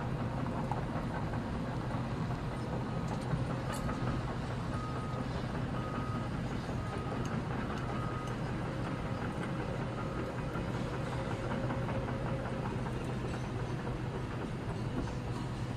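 Steady low mechanical hum over a constant rumble, with a faint high beep repeating about once a second through the middle.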